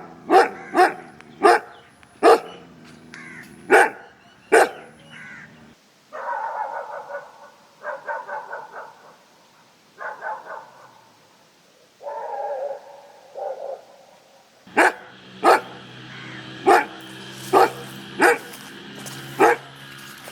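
Dog barking in short, sharp barks, followed by a stretch of longer, higher-pitched calls in short runs, then regular barking again about once every second over a steady low hum.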